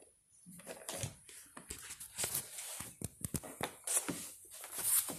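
Irregular rustling and light clicks of plastic toys and bedding being handled close to the microphone.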